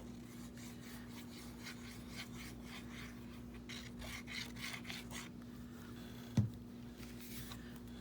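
Glue stick rubbed back and forth over paper in a run of quick strokes, then a single thump. All of it over a faint steady hum.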